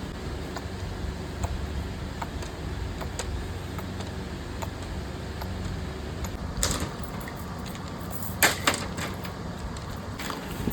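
Factory machinery running with a steady low hum and light, regular ticking. Two louder clattering knocks come about two-thirds of the way through.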